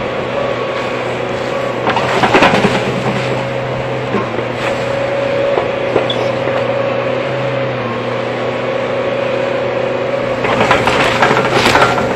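Hyundai hydraulic excavator running steadily while its bucket churns pond water, with water splashing about two seconds in and again heavily near the end as it sprays over the cab.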